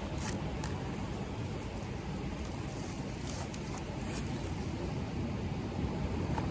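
Steady low rumbling noise, with a few faint ticks and brief hisses scattered through it.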